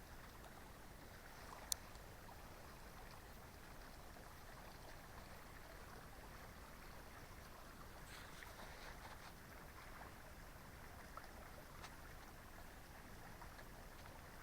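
Near silence: a faint, even background hiss, with one small sharp click about two seconds in and a few fainter ticks later.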